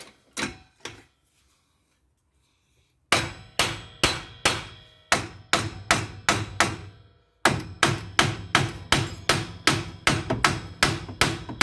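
Hammer blows on metal while rebuilding a car's front suspension. A few blows come at the start, then after a pause of about two seconds a steady run of ringing strikes at two to three a second, broken briefly about seven seconds in.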